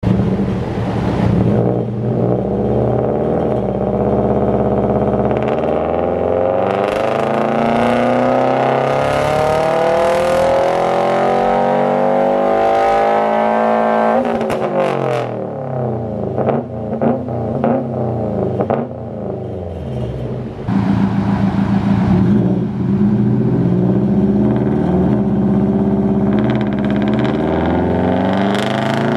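2017 Subaru STI's turbocharged flat-four run at full throttle on a dyno, breathing through a catless downpipe and a muffler-deleted catback: the exhaust note climbs steadily through the revs for about thirteen seconds, then cuts off sharply as the throttle closes. A burst of crackling follows as the revs fall. The engine settles and starts climbing again near the end.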